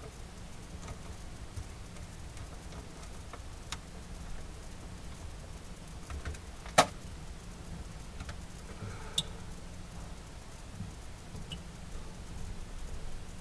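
Small clicks and handling noises of electrical wire connectors being fitted by hand, with one sharp click about seven seconds in and a smaller one a couple of seconds later, over a low steady hum.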